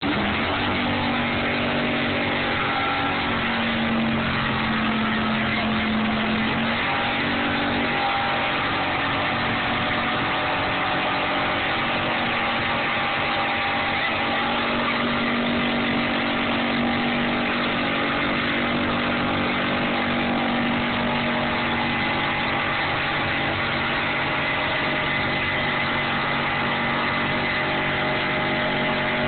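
Dodge Dart's 440 cubic-inch big-block V8 held at steady high revs through a long burnout, the rear tyres spinning and screeching on the pavement without a break.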